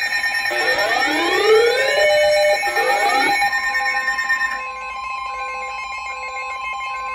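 Electronic alarm tones: several rising sweeping tones in the first half, then a single steady alarm tone that starts about three and a half seconds in and holds, with short repeating beeps alongside it. This fits a weather radio warning alarm tone sounding ahead of a Special Marine Warning message.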